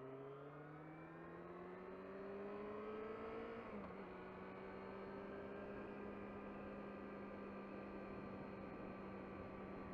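Yamaha R6 inline-four motorcycle engine, heard through a microphone inside the rider's helmet, rising steadily in pitch as the bike accelerates, dropping abruptly at a gear change almost four seconds in, then holding a steady note at cruising speed over a constant rush of wind noise.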